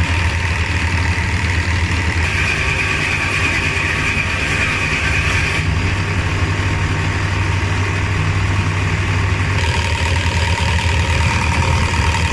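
Nissan TD27 four-cylinder diesel engine idling steadily on its freshly rebuilt injection pump.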